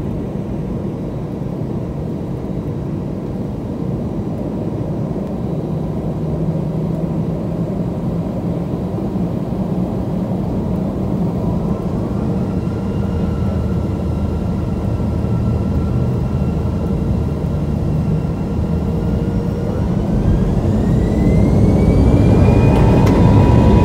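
Airbus A320's jet engine heard from inside the cabin: a steady low rumble, then a whine that rises in pitch from about halfway through, climbing steeply and growing louder near the end as the engine spools up toward takeoff thrust.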